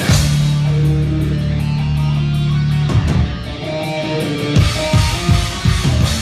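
Live heavy rock band opening a song: distorted electric guitars hold a low chord for about three seconds, then guitars and drums play a run of short, punched hits.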